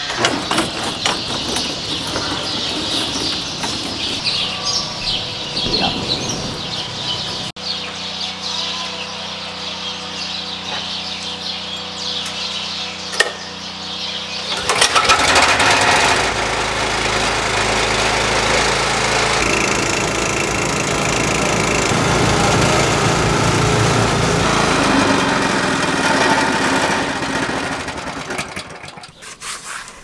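Small gasoline engine of a Valmetal Supercart feed cart running steadily. It gets louder about halfway through, holds there, and drops off near the end.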